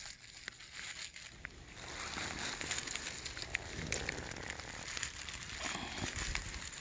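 Dry leaves and twigs rustling and crackling on the forest floor, with scattered small irregular snaps.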